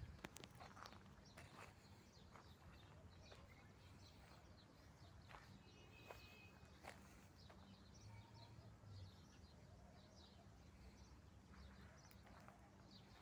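Near silence: faint outdoor ambience with scattered soft clicks and a low steady hum.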